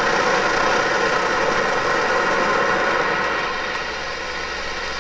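Optimus Svea 123R gasoline stove burning with a QuietStove silencer cap fitted: a steady, loud burner roar, still noisy despite the silencer. It gets a little quieter about three and a half seconds in as the flame drops.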